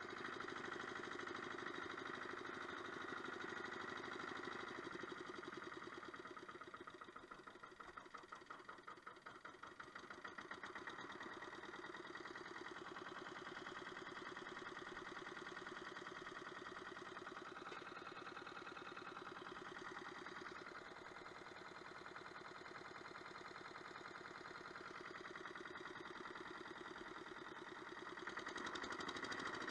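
Agria 1900 walk-behind tractor engine running steadily with a rapid, even firing beat while it pulls a homemade cultivator. The engine dips in loudness for a few seconds about a quarter of the way in and is louder again near the end.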